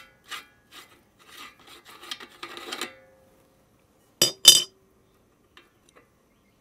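Threaded metal retaining ring on an electric meat grinder's head rasping in short repeated strokes, about three a second, as it is turned by hand to change the cutting plate. Then two sharp metallic clinks about four seconds in.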